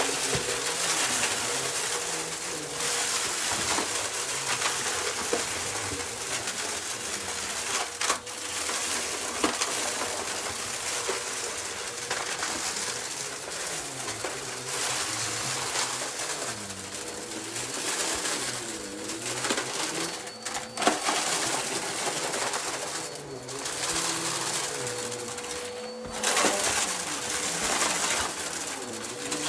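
Upright vacuum cleaner running on carpet, its motor holding a steady tone, with crackling and a few sharp clicks as it sucks up a crunchy mix of dry debris.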